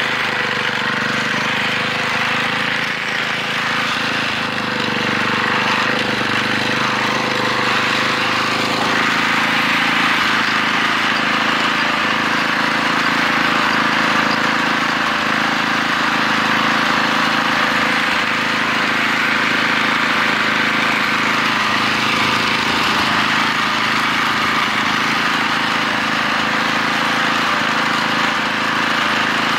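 John Deere walk-behind snowblower's small gasoline engine running steadily under load, with the auger and impeller churning and throwing heavy wet snow.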